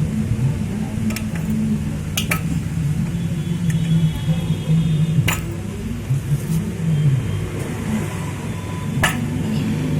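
Loose metal motorcycle clutch parts clinking as they are handled: a handful of sharp, separate clinks over a steady low hum.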